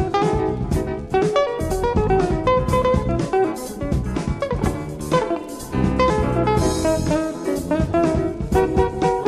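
Small jazz band playing, from a vinyl LP record: drum kit, bass, keyboards and guitar with alto saxophone, all at once.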